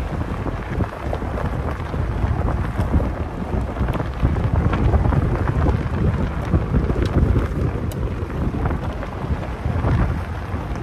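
Wind rushing and buffeting over the microphone held out of a Jeep's window as it drives along a gravel road, with a deep rumble from the tyres on the gravel and scattered small clicks of stones.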